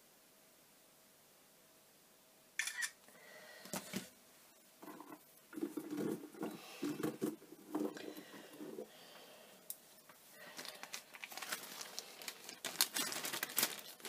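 Handling noise of a beaded necklace being taken off a fabric-covered display bust: rustling with light clicks of beads and metal tubes against one another. After a couple of seconds of quiet it comes in irregular bursts, building to a quick run of clicking and clatter in the last few seconds.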